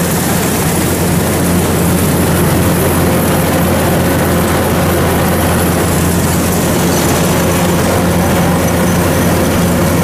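Rice combine harvester's diesel engine and threshing machinery running steadily while it harvests, heard from aboard the machine.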